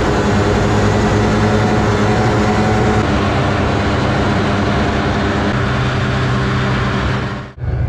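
Snowmobile engine running steadily under way, heard from on board as a constant drone over a rush of noise.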